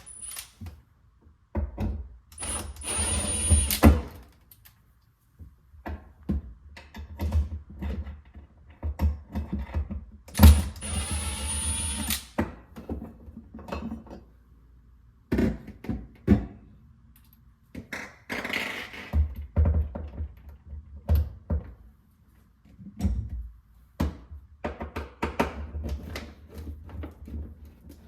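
Plastic refrigerator interior parts being handled and worked loose: irregular clicks, knocks and scrapes, with two longer rattling stretches a couple of seconds in and about ten seconds in.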